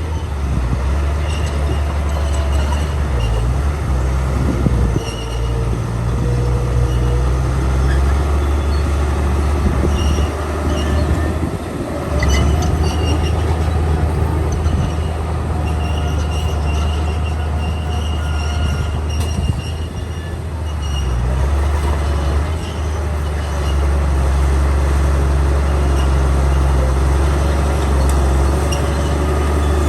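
Komatsu D41P crawler bulldozer's diesel engine running under load with a deep, steady rumble that eases off and picks up again a couple of times, with short high metallic squeals from its steel tracks.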